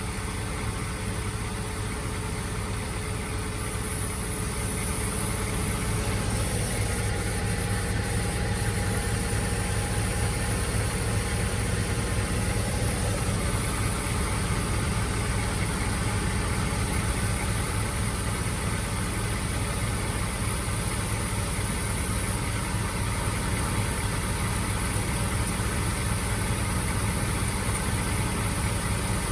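Mazda MX-5's four-cylinder engine idling steadily, in gear, so the manual transmission turns over while a flushing cleaner circulates through it.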